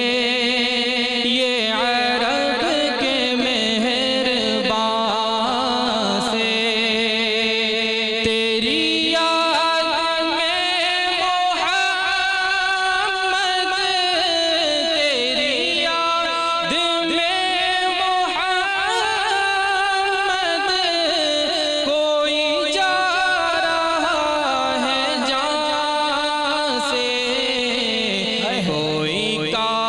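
A man singing an Arabic naat into a microphone, in long ornamented held notes that waver and glide up and down.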